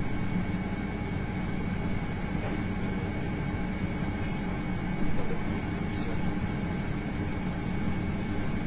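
Steady mechanical hum with a constant high whine over an even hiss, and a brief louder bump about five seconds in.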